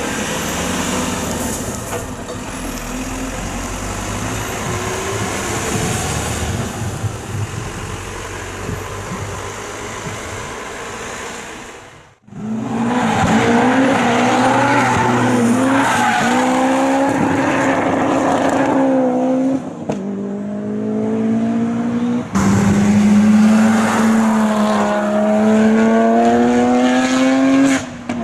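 Cars on a race track. For the first twelve seconds there is a steady rumble of a vehicle going by with a noisy hiss over it. After a sudden cut, car engines run at high revs, and twice near the end an engine note climbs steadily as a car accelerates hard.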